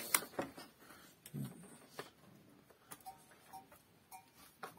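Quiet barn with sparse light knocks and clicks, roughly one a second, and a few faint short high tones about three seconds in.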